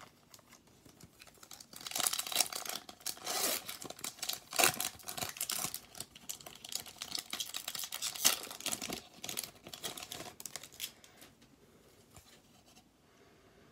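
Foil wrapper of a hockey card pack being torn open and crinkled, a dense crackling from about two seconds in until near the end, then only soft handling of the cards.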